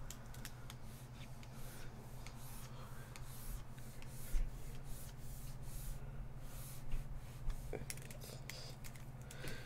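Pen stylus scratching across a graphics tablet in short, repeated inking strokes, over a low steady hum.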